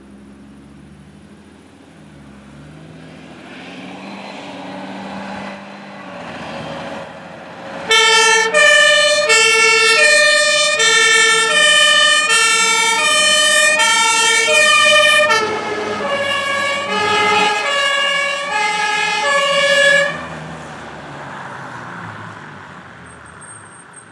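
MAN fire engine approaching with its engine running, then sounding its two-tone siren, which alternates between a high and a low note about every three-quarters of a second. About halfway through, as the truck passes, the siren drops in pitch. It stops about four seconds before the end, and the engine noise fades as the truck drives away.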